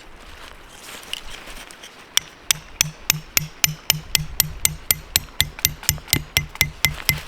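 A hammer driving a tent stake into dirt ground with quick, even blows, about four a second, starting about two seconds in. Each blow lands with a thud and a short ring.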